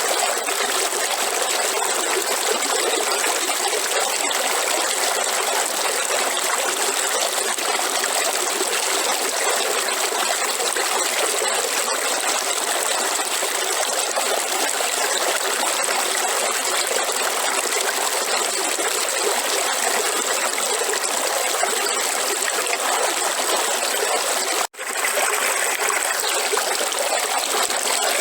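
River water running steadily over stones, a continuous rushing and trickling. About three-quarters of the way through, the sound cuts out for an instant and comes straight back.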